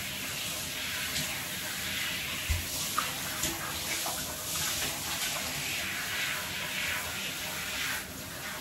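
Water running steadily from a handheld shower head and spraying onto a dog in a bathtub. A soft low thump about two and a half seconds in.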